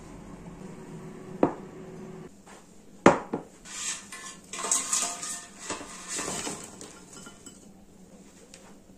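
A porcelain tea cup set down on a marble tabletop with a sharp clack about three seconds in. Then a batch of french fries is tipped into a ceramic bowl, rattling for about three seconds as some scatter onto the table.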